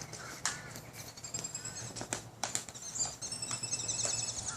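Small birds chirping in quick, high calls that grow busier toward the end, with a few sharp taps in the first half.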